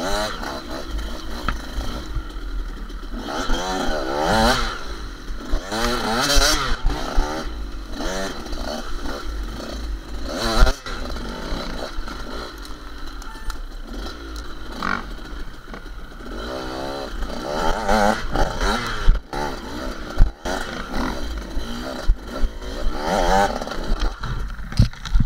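Enduro dirt bike engine, heard from the rider's own bike, revving up and down over and over as it rides over rough ground. Clatter and a few sharp knocks come from the bike hitting bumps, over a steady low rumble.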